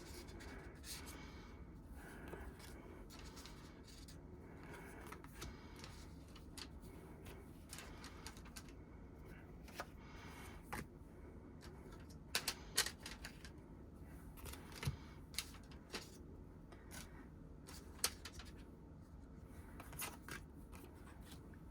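Faint handling noises of paper album contents and photocards being sorted: scattered small clicks and rustles, with a few sharper clicks around the middle and near the end.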